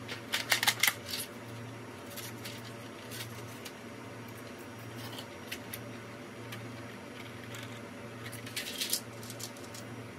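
Clear plastic keycap tray being handled, its thin plastic clicking and crackling: a flurry of clicks in the first second, a few scattered single clicks, and another flurry near the end.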